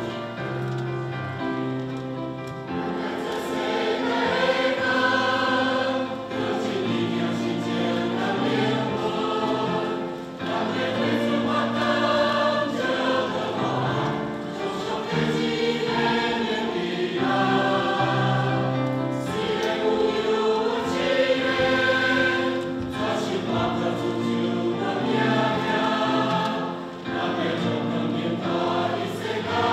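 Mixed church choir of men's and women's voices singing a hymn with instrumental accompaniment. The accompaniment plays alone at first and the choir comes in about three seconds in.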